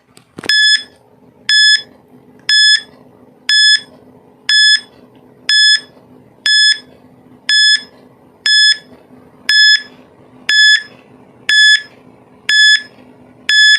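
Electronic timer beeping: a short high beep about once a second, steady and even, with a faint low hum between beeps.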